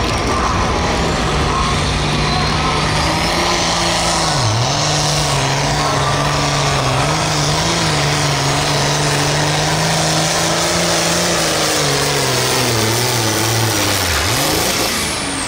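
International 1466 Turbo pulling tractor's turbocharged diesel engine running flat out under full load as it drags a weight-transfer sled, the engine note held high and steady. It dips briefly about four and a half seconds in and again near the end, and a high whine falls away as the run ends.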